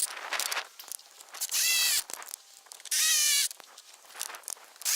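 Lag bolts being driven into a wooden fence post with a half-inch drive socket wrench: short squealing strokes roughly every second and a half as each bolt turns into the wood.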